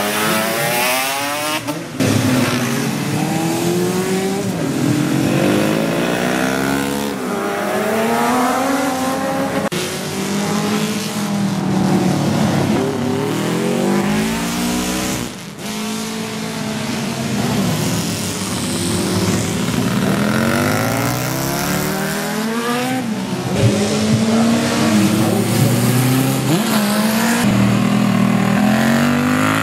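Racing motorcycles passing at full throttle one after another, their engine notes rising as they accelerate and dropping away as they go by. The sound changes abruptly several times between passes.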